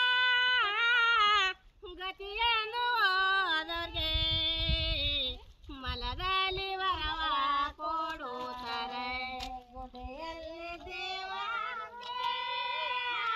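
A female voice singing a folk song unaccompanied, in long held phrases that slide and bend in pitch, with short breaks for breath between phrases.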